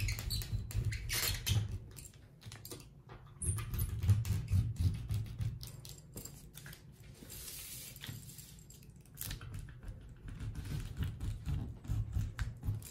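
A serrated tracing wheel rolled firmly over pattern paper on a table, pressing the drafted lines through onto the folded layer below. It makes runs of fine clicking and scratching in several strokes, with short pauses between them.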